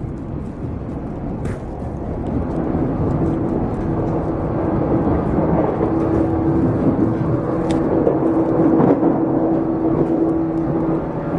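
Running sound of a 455-series express-type electric multiple unit heard from inside the car: steady rumble of the wheels on the rails with a steady humming tone that grows louder after about two seconds. A few sharp clicks are heard along the way.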